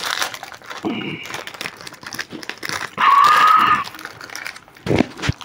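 Plastic ice cream wrapper crinkling as it is torn open and handled, with a short voice-like hum about three seconds in.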